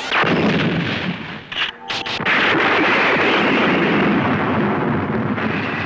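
Ray-beam blasts and explosion sound effects. A loud rush of blast noise comes first, a few short sharp bursts follow about two seconds in, then a long steady rushing roar eases off near the end.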